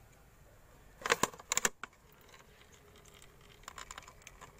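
Sharp metallic clicks and taps of a hand tool working the bolts of a Bajaj Platina's engine oil filter cover: a quick cluster about a second in, then fainter clicks near the end.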